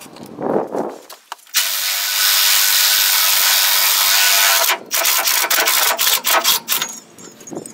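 Cordless power tool running steadily for about three seconds, driving a gear puller's screw to pull the timing gear off the crankshaft of a Ford 4.9-litre inline-six, followed by scattered metallic clicks and clatter as the gear comes loose on the puller.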